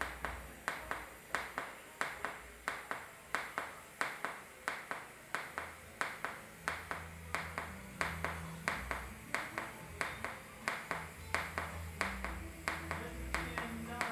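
Background music with a steady clap-like beat, about three hits a second, over a changing bass line.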